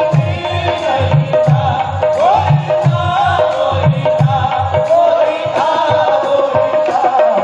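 Live qawwali music: harmoniums playing a melody over a held drone, with a steady hand-drum beat.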